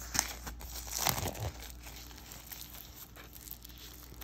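Plastic shrink-wrap around a watercolor paper block crinkling and tearing as it is handled and pulled open, busiest about a second in.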